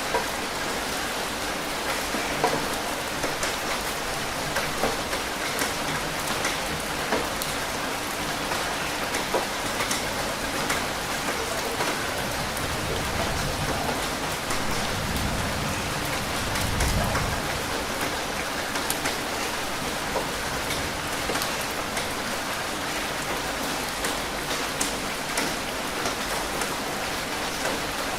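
Steady rain falling on a surface, with many separate drops ticking through the hiss. A low rumble swells and fades around the middle.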